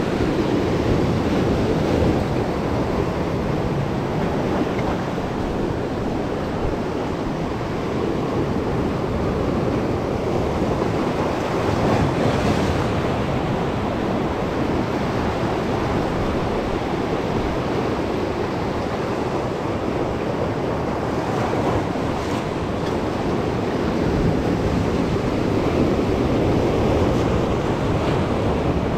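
Sea surf breaking over and washing around shoreline rocks: a continuous rush of waves.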